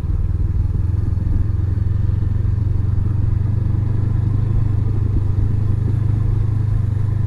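Honda CB500X's parallel-twin engine running at a steady low speed, its low note holding even with no revving.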